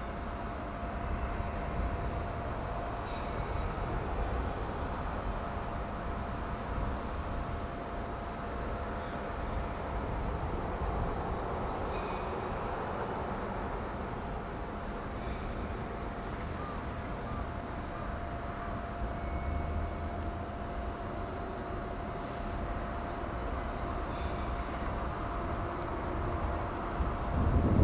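Steady outdoor background rumble with a constant thin hum and a few faint ticks, typical of distant machinery and traffic around a shipyard.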